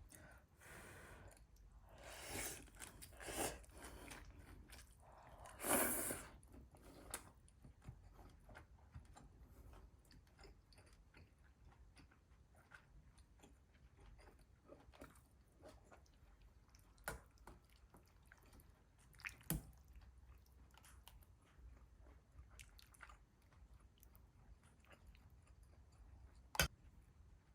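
Quiet, close-up chewing and crunching of food, loudest in a few short bursts in the first six seconds, then scattered light clicks and taps with one sharper click near the end.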